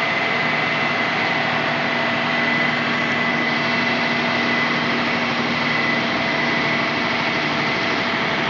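Crane engine running steadily while lifting a rooftop HVAC unit, with a thin, steady high whine over the engine noise.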